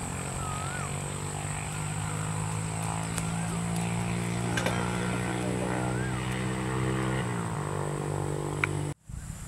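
A steady engine drone that dips a little in pitch about seven seconds in, with a few short bird chirps and a high steady whine above it. The sound cuts off abruptly just before the end.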